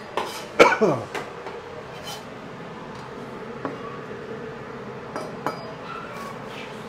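Kitchen clatter: a sharp clink of a knife or dish about half a second in with a brief falling ring, then a few sparse knife taps on a plastic cutting board as spring onions are trimmed, over a steady faint hum.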